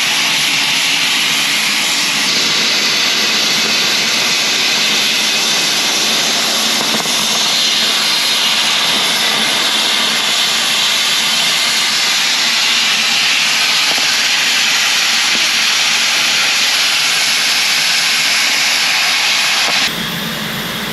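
Oxy-fuel cutting torch on a Victor DC2400 duplicator burning through thick steel plate: a loud, steady hiss from the oxygen cutting jet. About a second before the end the sound drops a little and changes.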